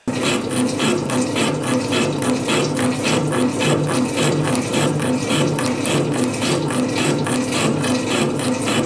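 Metal shaper running, its ram stroking back and forth with a steady repeating mechanical clatter as it cuts rack teeth into a steel bar.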